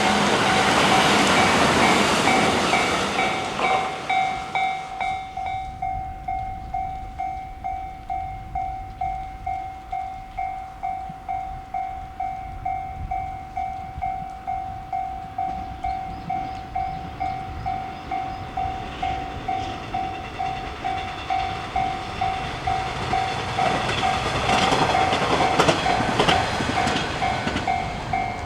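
Japanese railway level-crossing alarm ringing steadily at about two strokes a second. A train runs past in the first few seconds, and another train's running noise and wheel clatter builds near the end.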